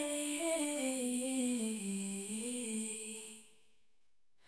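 Background song: a wordless hummed vocal line moving slowly downward note by note, fading out about three and a half seconds in, then near silence.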